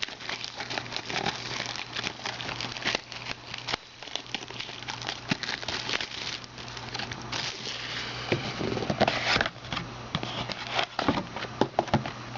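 A trading card hobby box being opened by hand: crinkling wrapper and rustling, tapping cardboard, with handling noise throughout and heavier rustles near the end.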